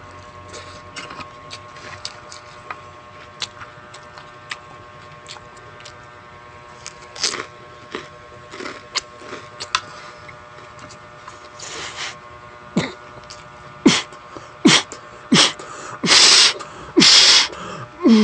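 Close-miked eating sounds: lettuce being chewed, with scattered small mouth clicks and crunches over a faint steady hum. In the last few seconds, several loud noisy bursts come right on the microphone.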